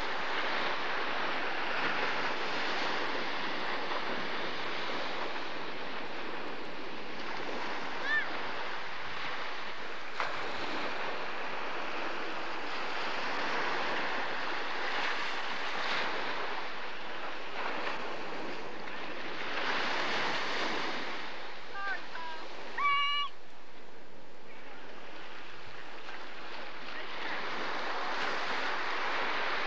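Ocean surf washing in at the shoreline, a steady hiss that swells and eases every several seconds. About two-thirds of the way through comes a brief high-pitched cry.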